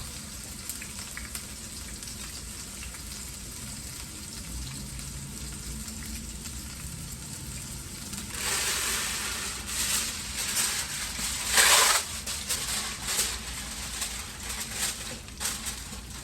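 Ribeye steak burgers frying in a pan, a quiet steady sizzle that grows into louder crackling sizzle about halfway through, with its loudest surge a few seconds later and scattered pops after.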